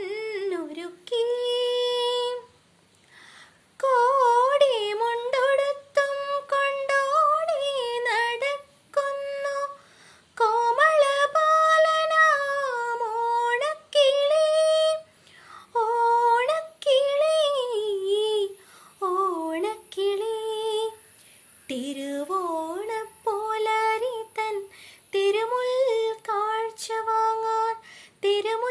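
A woman singing a Malayalam Onam song solo and unaccompanied, in phrases of held notes with ornamented turns and gliding pitch, pausing briefly for breath between lines.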